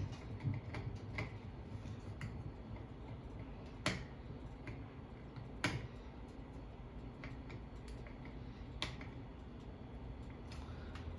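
Scattered sharp metallic clicks and light ticks of a screwdriver working screws into a ceiling fan's metal light kit housing, with three louder clicks spread through.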